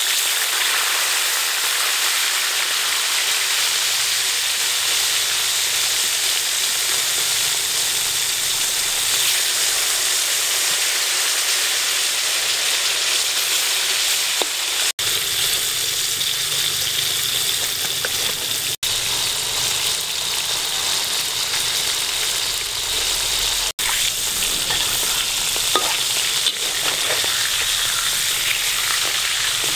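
Whole fish deep-frying in hot oil in a steel wok: a loud, steady sizzle that starts as the fish hit the oil, broken by three very brief gaps. A metal spatula stirs the fish in the wok now and then.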